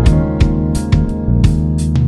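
Background music: an instrumental track with sustained notes over a steady beat.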